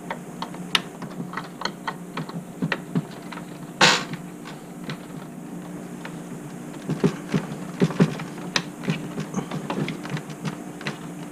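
Irregular plastic and metal clicks and rattles from handling the parts inside an open Alienware Aurora R6 desktop case: a power cable being pressed into the video card and the hinged power-supply cage being moved. One sharper, louder click comes about four seconds in.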